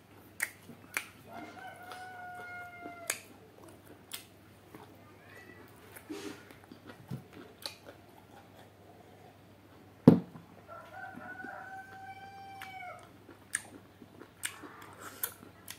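A rooster crowing twice, each crow about two seconds long and the second about nine seconds after the first, over scattered small eating clicks and smacks. A single sharp knock about ten seconds in is the loudest sound.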